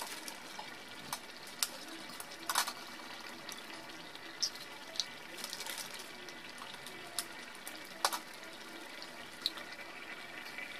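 Thick curry gravy simmering in a pan, with eggs poaching in it: a quiet steady bubbling with scattered sharp pops of bursting bubbles every second or so.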